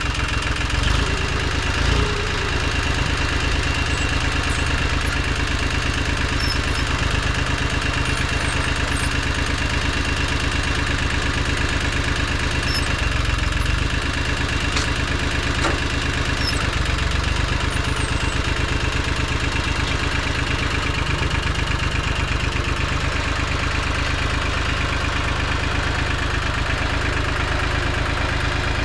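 International 275 tractor engine running steadily at a low, even speed as the tractor is driven off a trailer.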